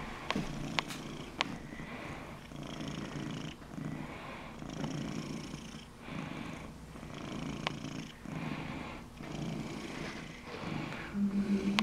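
Domestic cat purring, the purr swelling and fading with each breath about every second and a half.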